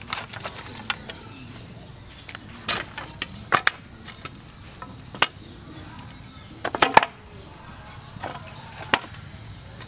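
Green bamboo poles and split bamboo strips knocking and clattering as they are handled and set down on dirt, in a series of separate knocks. The loudest cluster comes about seven seconds in.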